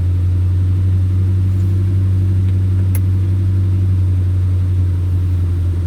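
Off-road vehicle engine running steadily at a low, even pitch, with a brief click about three seconds in.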